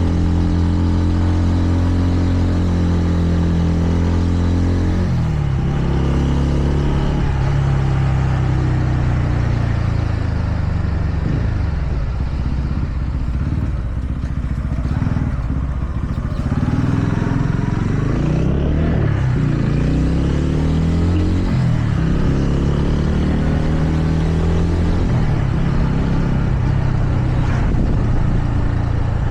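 TVS Ronin's single-cylinder engine under way: steady revs for the first few seconds, then the revs fall and climb repeatedly through the middle as the throttle is rolled off and on through gear changes, settling to steady revs again near the end.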